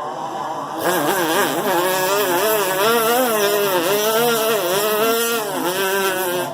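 A man imitating an engine with his mouth: a buzzing, engine-like drone starts about a second in and keeps rising and falling in pitch like an engine being revved.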